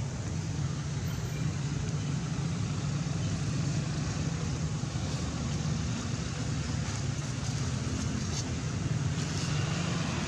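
Steady low rumble of motor traffic with an even hiss over it.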